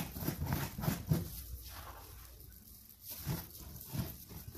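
Wet white cement or plaster-of-Paris paste being daubed and spread over a taped cardboard box: irregular soft scraping and squishing strokes, with a few light knocks on the cardboard.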